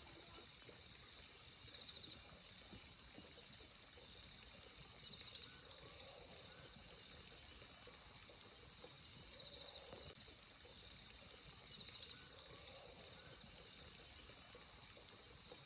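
Night insects calling in a faint, steady, high-pitched chorus, with a short trilled call that repeats every two to three seconds.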